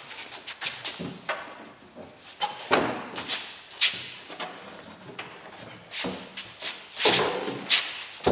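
Irregular clicks, knocks and short scrapes of hand work: metal and plastic parts being handled and fitted, with the loudest knocks about three seconds in and near the end.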